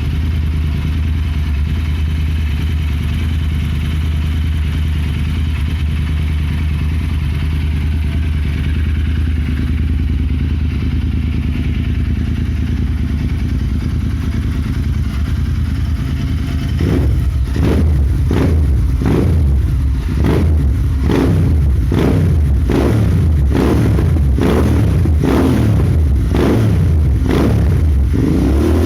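Royal Enfield Interceptor 650's 648 cc parallel-twin engine, on its stock exhaust, idling steadily. About two-thirds of the way through, the throttle is blipped over and over, a little more than once a second, each rev rising and dropping back.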